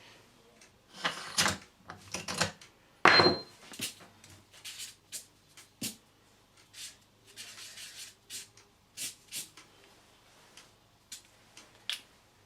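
Irregular clicks, knocks and short rubbing or scraping sounds of hard objects being handled, with the loudest knock about three seconds in.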